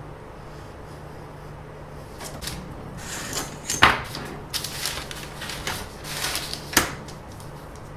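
Rustling handling noise with scattered clicks and two sharp knocks, about four and seven seconds in, over a low steady hum.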